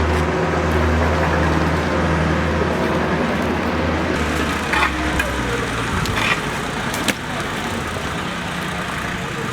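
Heavy construction machinery's engine running steadily with a low hum, easing off about six seconds in, with a few sharp metallic knocks around the middle.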